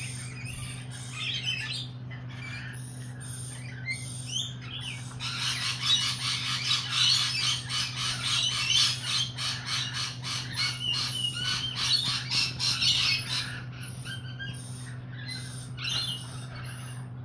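Lorikeets calling, with scattered shrill chirps and squawks; from about five seconds in a dense, rapid chatter of harsh screeching calls builds up and runs for about eight seconds before thinning out again.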